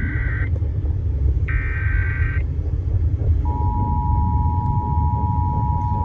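Emergency Alert System broadcast from a car radio's door speaker: the tail of the screechy digital data header, with one burst at the start and another about two seconds in, then from about three seconds in the steady, unbroken EAS attention tone. A low rumble from the car runs underneath throughout.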